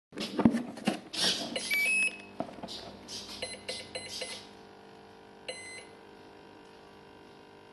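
Sharp clicks and knocks of hands on a model aircraft's fuselage, with several short electronic beeps in a few pitches, the first pair stepping up in pitch. After about five seconds only a faint steady hum is left.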